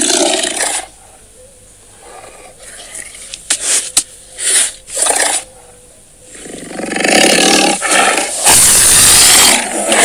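Tiger roars and growls: the recorded sound of Google Search's 3D AR tiger. A roar ends just under a second in, a few short growls come around four to five seconds, then a long, loud roar starts about six and a half seconds in.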